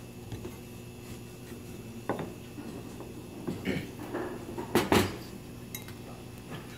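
A wooden rolling pin and hands working pasta dough on a plastic cutting board: a few scattered knocks and clatters, the loudest pair about five seconds in, over a low steady hum.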